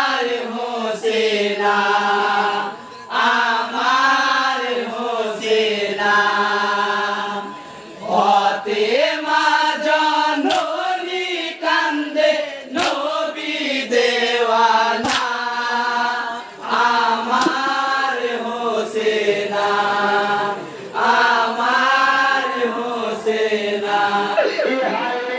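Male voice singing a Muharram marsiya lament (jari gaan) in a chanting style through a microphone and PA, in long held, wavering phrases broken by short pauses for breath.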